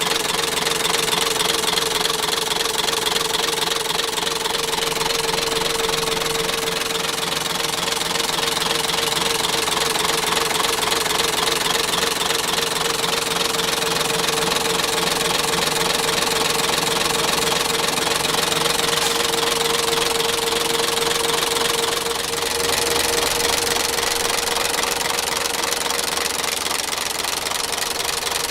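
Mitsubishi Fuso 6D22-2AT2 turbocharged straight-six diesel engine running steadily at idle, with diesel clatter and a steady whine over it.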